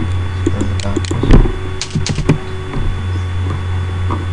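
Computer keyboard and mouse clicks: a handful of short, separate clicks in the first half, one louder knock among them about a second and a half in, over a steady low hum.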